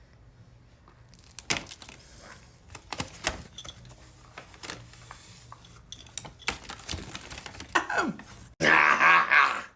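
Plastic snack wrapper being torn open and handled: a string of sharp crackles and clicks, with a louder, denser crinkling burst near the end.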